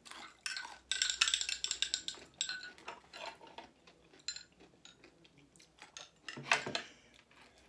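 Fork and knife clinking and scraping against a plate in scattered taps, with a dense clatter about a second in and a louder clack near the end.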